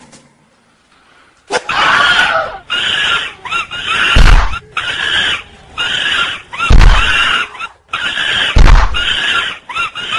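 Chimpanzee screaming: a fast string of shrill shrieks starting about a second and a half in, with three heavy low thumps among them.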